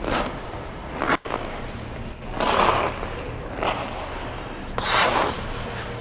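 Hockey skate blades in Marsblade holders carving and scraping the ice in turns and stops: about five separate scraping swishes, the loudest and hissiest near the end, over a steady low hum.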